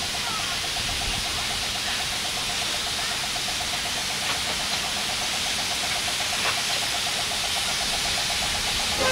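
Narrow-gauge steam locomotive moving slowly with a steady hiss of steam, with a fast, even ticking running under it.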